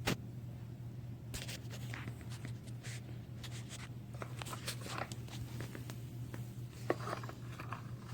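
Scattered light clicks and scrapes of small plastic parts and hand tools being handled while a central-locking vacuum pump is taken apart, over a steady low hum.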